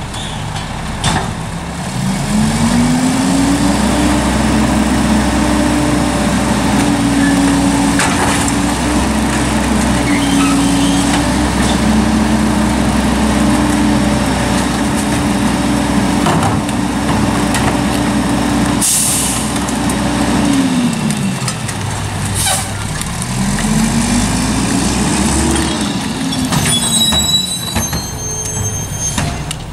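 A Mack MR garbage truck's diesel engine revs up about two seconds in and holds there while the McNeilus rear-loader's hydraulic packer cycles. It drops back to idle around twenty seconds, then revs up and back down once more. Two short air hisses come near the middle.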